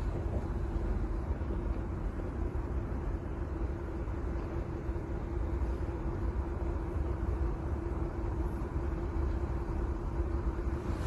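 Steady low rumble of wind buffeting the microphone, with a constant mid-pitched hum underneath.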